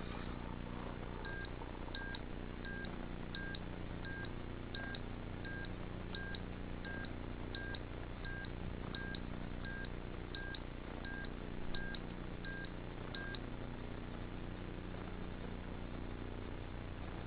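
Piezo buzzer on an Arduino breadboard giving about eighteen short, high-pitched beeps, evenly spaced about three every two seconds, then stopping: the pelican crossing's pedestrian crossing signal, sounding while the pedestrian green light is on.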